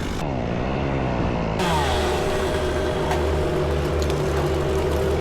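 An engine dropping in pitch over the first second or so, then running at a steady speed.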